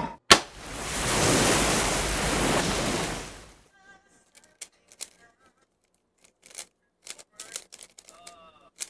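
A sharp click, then a rush of noise that swells and fades over about three seconds, like an intro whoosh. Light scattered clicking follows, fitting a speed cube being turned.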